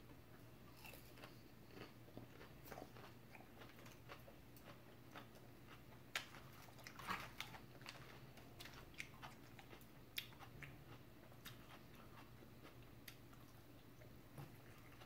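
Faint close-up eating sounds: a person chewing and crunching a mouthful of lettuce salad and shrimp, with scattered small clicks, crackles and smacks.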